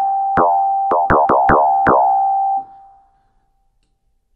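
Logic Pro X's EFM1 FM synthesizer playing the same note about six times in quick, uneven succession, its carrier harmonic set high, each note with a sharp attack and a ringing, metallic tone. The last note fades out about three seconds in.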